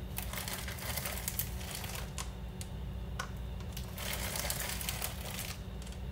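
Semi-sweet chocolate chips scattered by hand from a plastic bag: irregular light clicks and the crinkle of the bag as handfuls are taken out. A steady low hum runs underneath.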